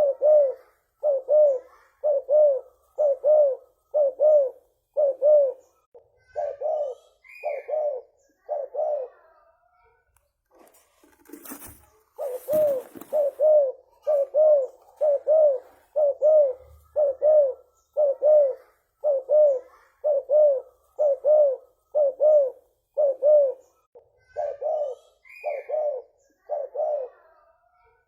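Spotted dove (tekukur) cooing in a long run of short, low coos, about two a second, with a short break around ten seconds in. A brief rustling noise comes around twelve seconds.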